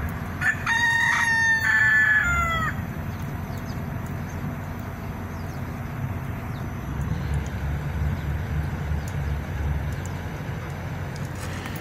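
A rooster crows once, a call of about two seconds that holds its pitch and then falls away at the end. Under it runs the steady low hum of the Midea ZenAire 3D DC inverter mini-split's outdoor condensing unit, which is running under load.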